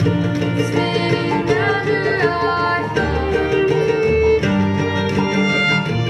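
A bluegrass string band playing acoustic music live: fiddle, banjo, acoustic guitar, mandolin and upright bass together, with gliding notes about one and a half to two seconds in.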